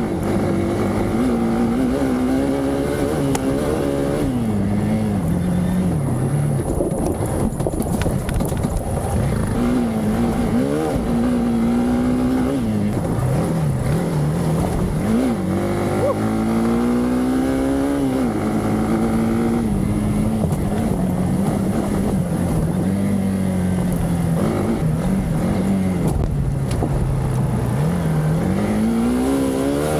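Hero Xpulse 200's single-cylinder engine being ridden hard off-road, its pitch repeatedly climbing under throttle and dropping back, with a sharp rise about halfway through and another climb near the end.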